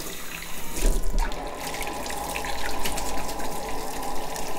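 Water running from a tap into a sink as a hand is rinsed under it, a steady rush that grows fuller about a second in.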